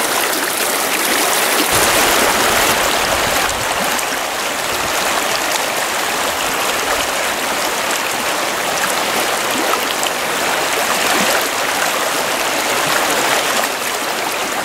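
Steady rush of shallow river water flowing over a rocky bed.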